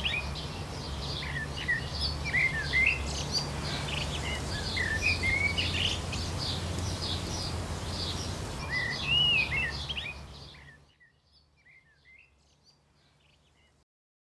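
Songbirds singing, short whistled phrases repeated over and over against a steady low background hum. The sound fades out about three-quarters of the way through, leaving a few faint calls, then stops.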